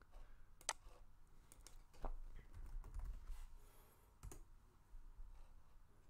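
Faint computer keyboard typing and mouse clicks: a scattering of separate sharp clicks.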